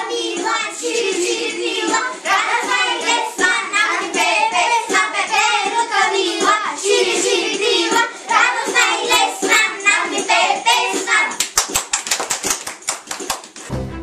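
A group of young children singing a song together in Macedonian, then clapping their hands quickly for about two seconds near the end.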